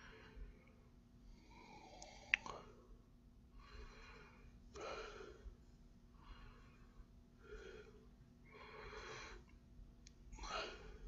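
Coloured pencil scratching on paper in a series of short, faint strokes about a second apart, with one brief click a couple of seconds in.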